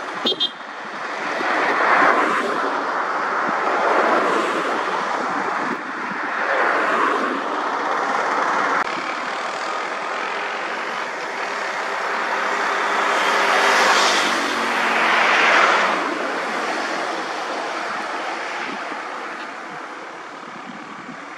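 Road traffic going by one vehicle after another: engine and tyre noise rising and fading as each passes, several times, then dying away near the end.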